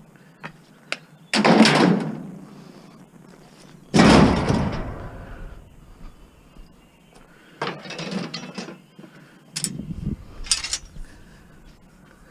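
Four loud bangs and clatters, the second about four seconds in the loudest and deepest, with a few small clicks between: scrap pieces being handled and dropped into a vehicle while loading.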